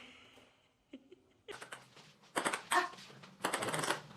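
Irregular rustling and clinking handling noises, starting about a second and a half in, after a sharp knock at the very start.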